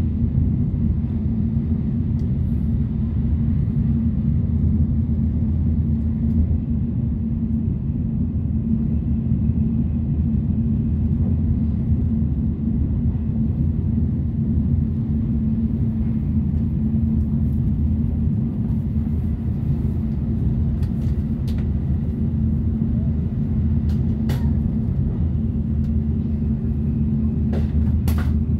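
Cabin noise inside a Shinkansen bullet train running at speed: a steady low rumble, with a few faint clicks near the end.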